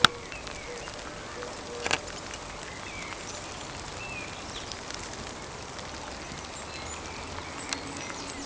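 Steady hiss of falling rain, with a sharp knock about two seconds in and a few fainter clicks. Faint short bird calls come through now and then.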